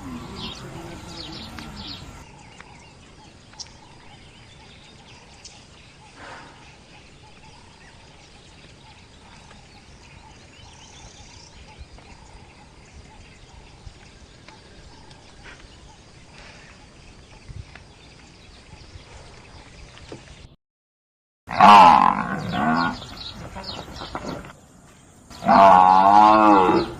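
Water buffalo calling: a low call fades out in the first two seconds, then a long quiet stretch of outdoor background with a few faint ticks. After a short cut, two loud wavering calls come near the end.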